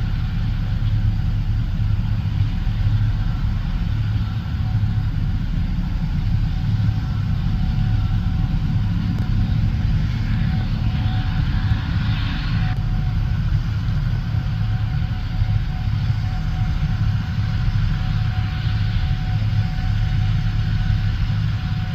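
Gleaner S77 combine harvester running steadily while harvesting corn, a constant low engine hum. About ten seconds in, a rushing hiss swells over it for a few seconds, then stops suddenly.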